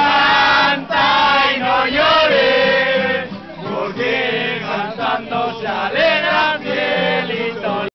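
Mariachi song: several voices singing loudly together, in phrases that break off and start again.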